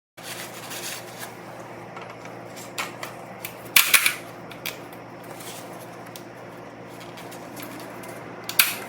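A few sharp clicks and clacks of parts or tools being handled, the loudest pair about four seconds in and another near the end, over a steady low hum.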